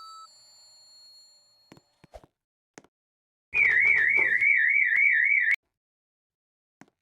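Elevator alarm sounding a loud electronic warbling tone, about four wobbles a second, for about two seconds, then cutting off suddenly. Some rustling noise comes with its start.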